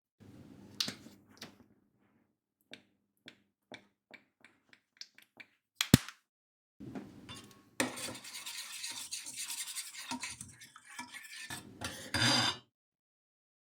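Kitchen food-preparation handling: scattered light taps and clicks, one sharp click about six seconds in, then about five seconds of continuous scraping and rubbing that stops abruptly.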